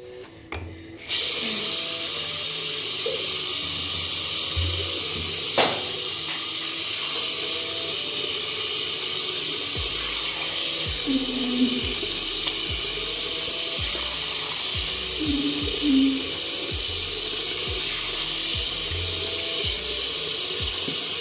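Bathroom sink tap turned on about a second in, then water running steadily from the faucet into the basin while hands are rinsed in the stream and water is splashed onto the face. A single sharp knock about five and a half seconds in.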